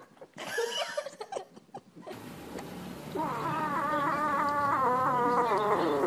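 A cat yowling: one long, wavering wail beginning about three seconds in, sliding down in pitch as it ends. It is preceded by a few brief, quieter squeaky calls.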